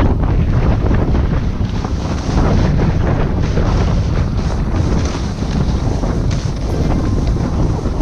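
Wind buffeting the camera's microphone on an exposed snowy ridge: a loud, steady low rumble that flutters unevenly.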